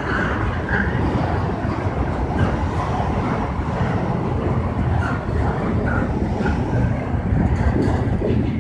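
Double-stack container freight train rolling past: a steady rumble and clatter of the cars' wheels on the rails, with a few short higher-pitched squeaks.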